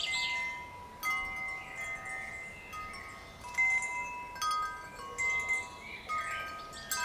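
Rokakku wind chime, six hollow gold-finished alloy tubes under a hexagonal wooden top, swaying and struck several times at irregular intervals. Each strike rings out in clear bell-like tones that hang on and overlap as they slowly fade.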